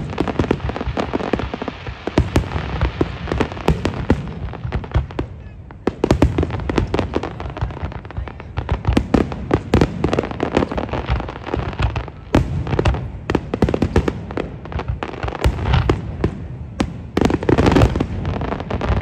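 Aerial fireworks display: a dense, rapid barrage of shell bursts and crackling, with a short lull about five seconds in before it picks up again.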